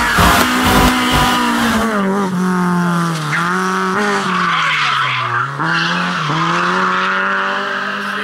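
Lada 21074 rally car's four-cylinder engine working hard through a corner. Its note falls and rises several times as the revs drop and pick up, dipping lowest about five seconds in and climbing again near the end. Dance music with a steady beat plays over the first two seconds.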